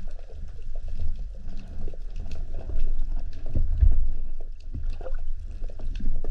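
Water sloshing and rushing around the camera, a low rumble with scattered faint clicks and a few dull thumps.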